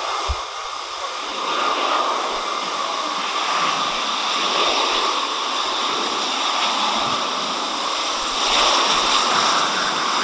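Jet engines of an Airbus A320-family airliner low over the runway on its landing approach: a steady rushing roar that grows louder near the end as the jet comes closest.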